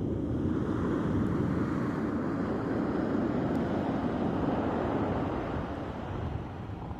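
Surf breaking on the shore: the rush of a wave swells in about half a second in, holds, and eases off toward the end, with low wind rumble on the microphone underneath.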